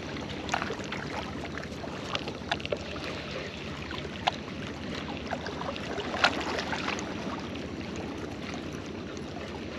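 Steady water noise with scattered short clicks and small splashes, about a dozen, the sharpest about a second in, near the middle and past the halfway point.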